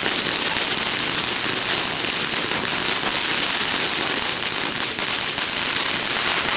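Several ground fountain fireworks spraying sparks at once: a steady, loud hiss with dense crackling throughout, and one sharper crack about five seconds in.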